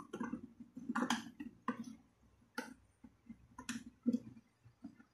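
Irregular clicks, knocks and rubbing of plastic as a toilet cistern's flush lever fittings are handled and fitted inside the empty plastic tank.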